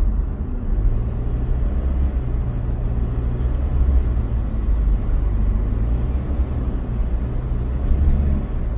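Steady low rumble of a car's engine and tyres, heard from inside the cabin while driving at road speed.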